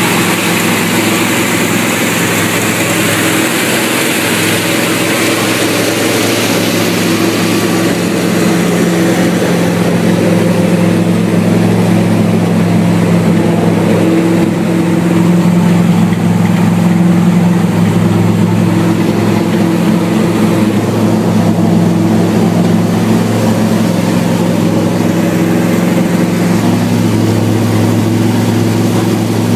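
Chrysler 360 small-block V8 engine idling steadily, its low hum a little louder around the middle.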